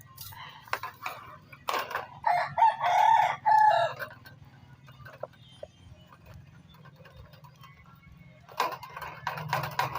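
A rooster crowing once, a loud call of about two seconds, over a steady low hum.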